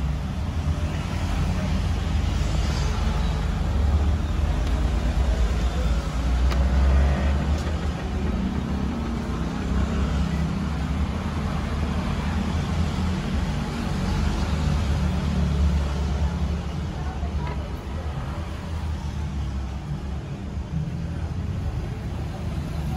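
Steady low rumble of a car driving: engine and road noise.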